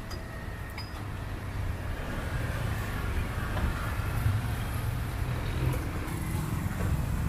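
Steady low rumble of street traffic, growing slightly louder, with a couple of faint light metallic clinks in the first second.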